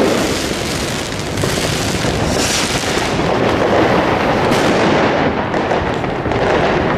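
Continuous New Year's fireworks: many overlapping bangs and crackles from rockets and firecrackers, with no single dominant blast.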